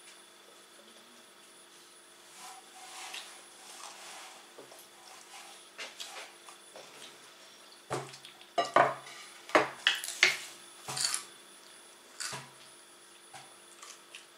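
Kitchen utensils and dishes clattering: a few soft scrapes, then a quick run of sharp metallic clanks and clinks about eight seconds in, with one more a little later.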